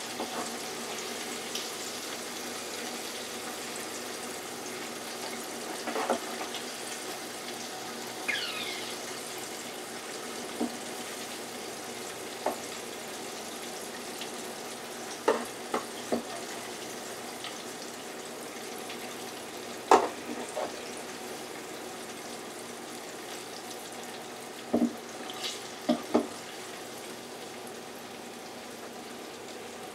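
Hot oil sizzling steadily in a small electric deep fryer, with scattered sharp metal clicks of tongs against the fryer and wire rack as fried jumbo shrimp are lifted out.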